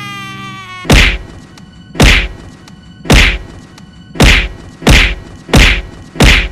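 A cartoonish punch sound effect: heavy, meaty whacks repeated seven times, about a second apart at first and coming faster toward the end. A held musical chord plays before the first hit.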